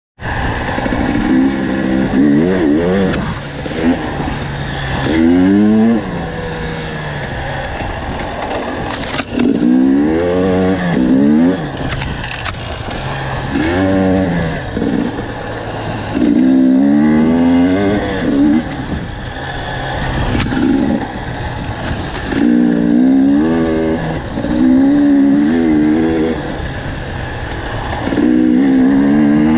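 Enduro dirt bike engine heard from on board, its revs climbing and dropping again and again as the rider accelerates and eases off.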